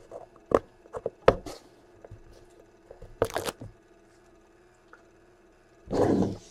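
Hands handling a metal card briefcase: a few sharp clicks and knocks against the aluminium case and its latches, a short scrape a little after three seconds, and a louder rustling scrape near the end.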